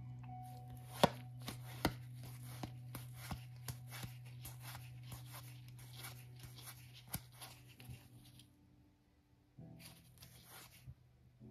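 Playing cards being handled: a string of irregular sharp clicks and snaps, two or three a second, that pauses briefly near the end before a few more, over a low steady hum.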